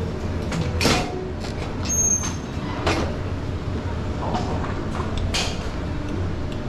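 Gym room noise: a steady low hum with sharp metallic knocks from weight equipment, the loudest about one, three and five and a half seconds in.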